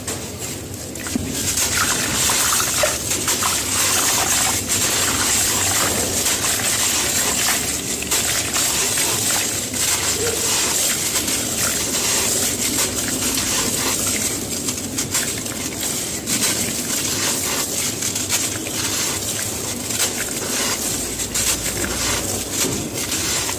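Gritty cement crumbling into water: a dense crackle of breaking grit mixed with water splashing and trickling, getting louder about a second in.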